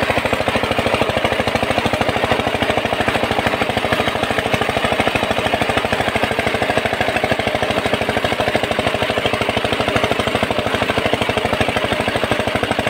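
Power tiller's single-cylinder diesel engine running at steady speed, with a fast, even knocking beat, while it drives a belt-driven water pump under load. Water gushes out of the pump's outlet pipe.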